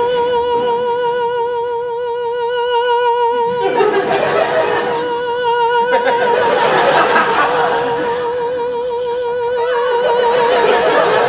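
A man's voice holding one long sung note with a wide, even vibrato. A studio audience laughs over it from about four seconds in until about nine seconds.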